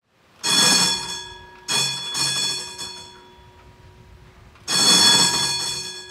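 Tram bell rung in separate strikes: one about half a second in, a quick double ring around two seconds, and another near the end, each ringing on and fading.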